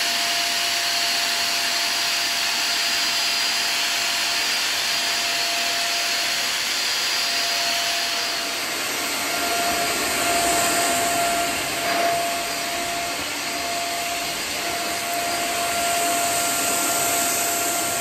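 600 W upright 2-in-1 stick vacuum cleaner running steadily with a constant whining tone as its floor head sucks up corn flakes from a tiled floor.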